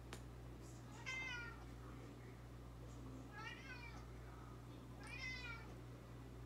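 A small dog whines three times, high-pitched, each whine rising and then falling over about half a second. The whines are muffled because she has a toy in her mouth and cannot bark while she stares at something.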